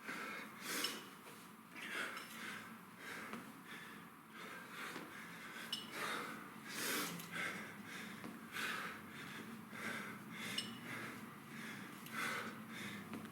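Heavy breathing: repeated sharp exhales, about once a second, from a man working through a set of kettlebell cleans and reverse lunges under exertion.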